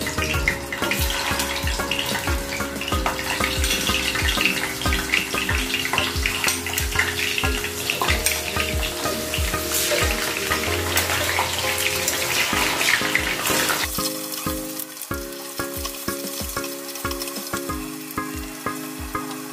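Potato chunks frying in hot oil in a pan, a steady sizzle that is strongest as the potatoes go in and turns fainter about fourteen seconds in. Background music with sustained notes and a steady beat plays over it.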